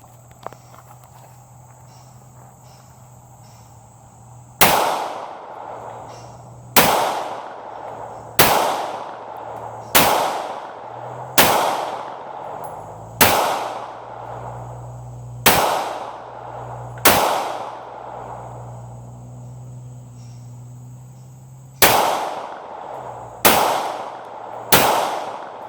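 Glock 19 9mm pistol fired eleven times at a steady pace, a shot every one and a half to two seconds, with each report trailing off in a short echo. After the eighth shot there is a pause of about five seconds before the last three.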